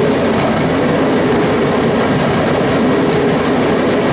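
Railroad speeder (track motor car) travelling along the rails: its small engine running steadily under continuous wheel noise from the track.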